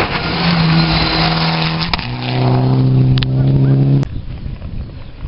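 Mitsubishi Lancer Evolution rally car at full throttle sliding through a gravel corner, its tyres spraying gravel. About two seconds in it shifts up and the engine note drops to a lower, steady pitch. The sound cuts off suddenly about four seconds in.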